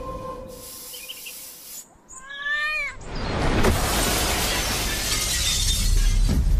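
A glass window pane smashed by a thrown ball: a sudden crash of breaking glass about three seconds in, its noise running on for a couple of seconds. Just before it comes a short cry that bends up and then down in pitch.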